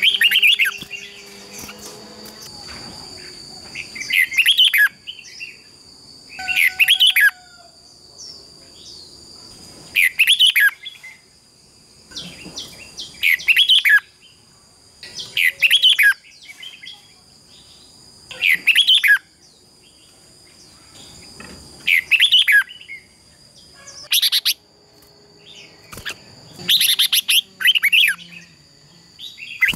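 Red-whiskered bulbul song: loud, short, warbling phrases repeated about every two to three seconds. A steady high thin tone runs underneath.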